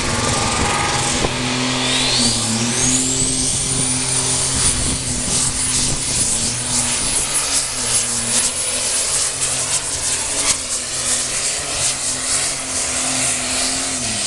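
Super Stock pulling tractor's turbocharged diesel engine running flat out under load while hauling the weight sled. A high turbo whistle rises in pitch over the first few seconds and then holds steady, and the engine note drops away at the very end as the pull finishes.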